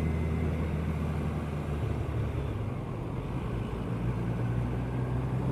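Kawasaki ER-6n's 649 cc parallel-twin engine running under way with road and wind noise, its note easing off about halfway and then rising again as it pulls.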